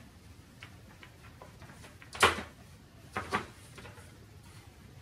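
Loose wooden tray parts knocking against each other and the workbench as they are handled. There is one sharp knock about two seconds in, then two softer knocks about a second later.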